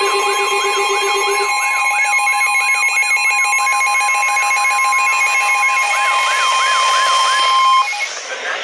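Emergency alert tones for a tornado warning from EAS equipment and weather radios sounding together. A long steady tone and several higher steady tones are layered with rising-and-falling chirps about twice a second. A low pulsing beep drops out about a second and a half in, and all the tones cut off near the end as a voice broadcast begins.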